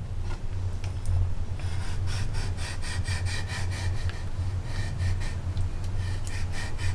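Chinese cleaver sawing back and forth through a pig kidney held flat on a wooden chopping board, slicing it open to cut away the white inner core. A quick run of short scraping strokes, about four a second, starts a second or two in, over a steady low hum.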